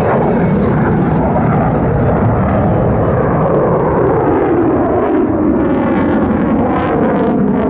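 Lockheed Martin F-35A's single Pratt & Whitney F135 turbofan running in afterburner as the jet climbs away overhead: a loud, steady jet roar whose tone slowly shifts.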